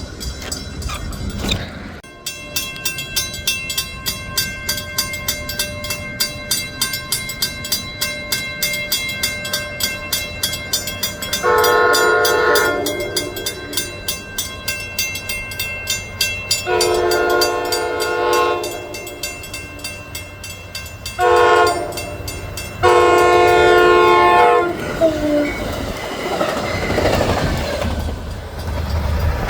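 Train horn sounding the grade-crossing signal: long, long, short, long, each blast a chord of several tones, over a fast, steady clanging beat. The sound fades after the last blast.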